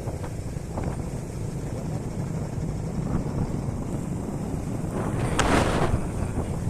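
Wind buffeting the microphone: a low, unpitched rumble with a louder hissing gust about five and a half seconds in.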